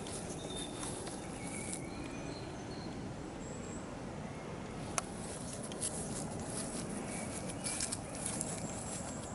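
Outdoor ambience under a steady low rumble, with short bird chirps now and then and the rustling crackle of footsteps through grass. A single sharp click about five seconds in.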